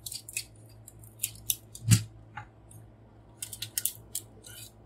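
Clicks and small knocks of a large transforming robot figure's parts being worked by hand at a tight joint. The clicks come in short clusters, with one heavier knock about two seconds in.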